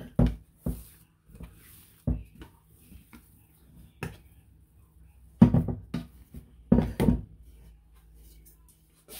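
Stainless steel Ankarsrum mixer bowl knocking against a granite counter as a plastic scraper works risen bread dough out of it: a string of separate knocks and scrapes, the loudest two about halfway through and a second and a half later.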